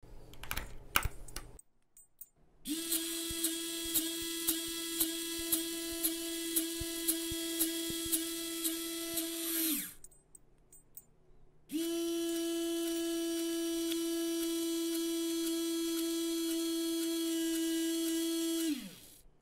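The electric motor of a homemade micro:bit automatic door opener runs for about seven seconds with a steady whir and a regular tick about twice a second, then winds down. After a short pause it runs again for about seven seconds, steadily and without ticking, and winds down again. A few brief knocks come in the first two seconds.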